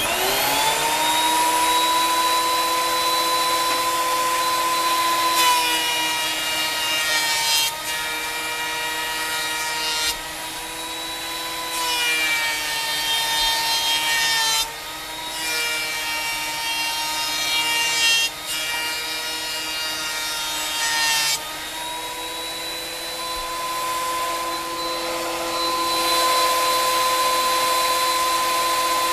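Thickness planer spinning up with a rising whine, then running steadily. From about five seconds in until about twenty-one seconds in, rough-cut cypress boards are fed through in several passes, and the cutter head's rough cutting noise comes and goes over the motor whine. After that the machine runs free again.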